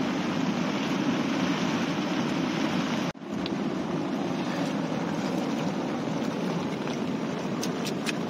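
Heavy rain on the tent, a steady hiss with no let-up. It breaks off for an instant about three seconds in, and a few light clicks come near the end.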